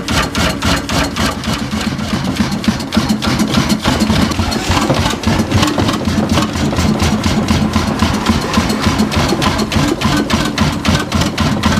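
Old van Rennes engine running steadily, with even beats at about four a second.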